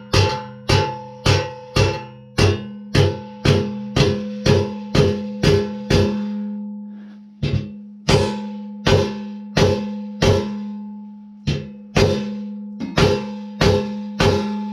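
Repeated hammer blows on steel, about two to three a second with a short pause around the middle. The frame rings on the same few fixed tones after every blow, most likely as a steering-neck bearing race is driven into the mini bike frame.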